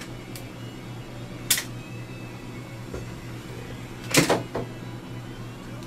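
Sharp plastic clicks from handling a dental impression-material dispensing gun: one click about a second and a half in, and a louder clatter of two or three knocks a little after four seconds. A steady low hum of equipment runs underneath.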